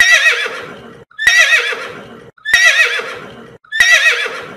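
Horse whinnying: four identical neighs, each with a wavering, quavering pitch that starts abruptly and trails off over about a second, repeated about every 1.3 seconds with brief silences between.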